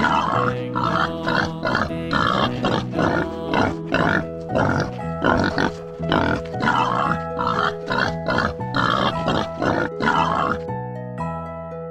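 Pigs grunting in a quick, uneven run, two or three grunts a second, over background music with long held notes.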